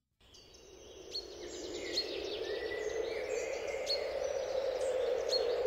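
Outdoor ambience fading in and growing steadily louder: a constant rushing background noise with birds chirping over it, short high chirps every second or so.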